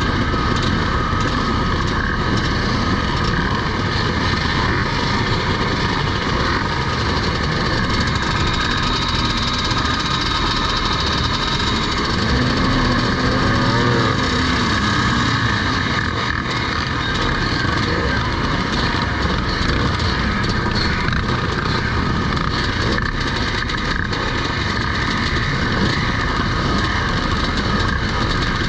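Several vintage motocross bikes' engines running continuously around the track. About halfway through, one bike's engine note rises and falls more clearly.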